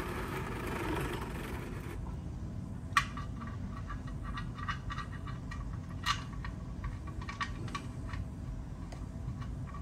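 Small metallic clicks and ticks as an oil drain plug with a new gasket is threaded by hand back into the oil pan of a 2017 Toyota Tacoma. There is a soft rustle at the start and two sharper clicks about three and six seconds in, over a steady low hum.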